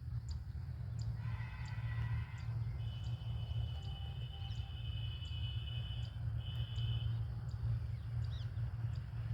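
Birds calling in the open countryside: short high chirps repeating about twice a second, with several long, steady, high calls held for a second or more, over a constant low rumble.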